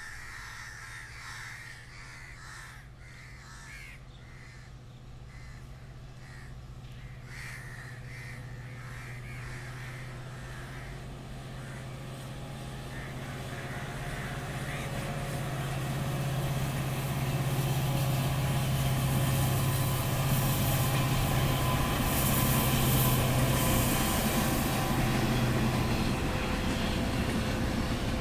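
Crows cawing repeatedly overhead while the low drone of an approaching WDP4D diesel locomotive grows steadily louder, drowning them out in the second half as the train draws level and the red passenger coaches begin rolling past.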